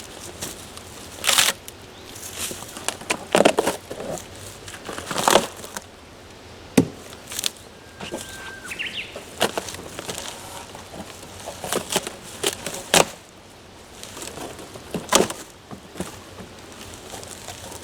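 Irregular rustling and cracking of branches and leaves, with scattered sharp knocks, and a brief high whistle-like tone about eight seconds in.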